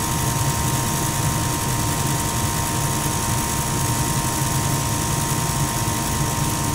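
Goodman gas furnace running steadily: an even blower-fan hum and rush of air with a constant thin high tone over it, on a furnace whose main burners keep failing to ignite.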